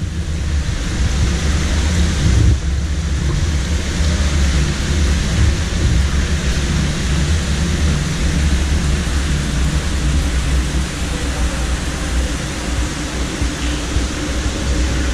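Steady rushing of water cascading down a stepped indoor fountain, over a deep, constant rumble.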